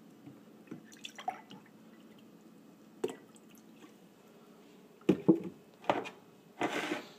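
Drink cartons, a milk jug and sauce bottles being handled: a few faint drips and clicks, then from about five seconds in a run of louder knocks and clatters as the containers are moved around.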